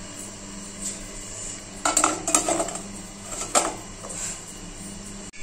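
Stainless-steel idli stand clinking and knocking against the steel steamer pot as it is set into the hot water. There are a few sharp metal knocks about two seconds in, another about three and a half seconds in, and lighter clatter between them.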